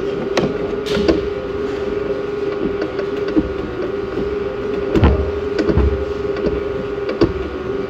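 A steady mechanical hum at one pitch, with scattered light clicks and taps, and a couple of dull low bumps about five to six seconds in.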